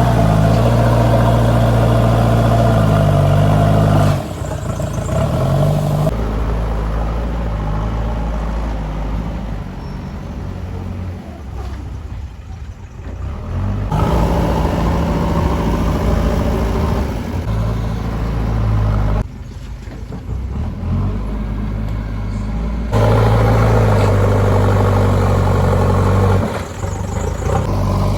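Heavy diesel engines of earthmoving machinery running under work. The engine note is steady, with its pitch falling briefly about three seconds in. The sound changes abruptly several times, with quieter stretches between louder ones.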